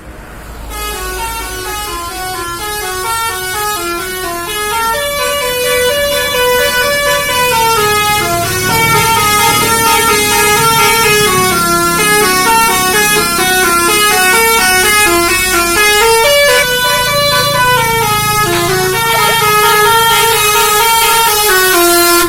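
Indonesian bus 'telolet basuri' multi-tone air horn playing a melody of quick stepped notes, rising and falling in a continuous tune that starts under a second in, loud, with a low rumble underneath.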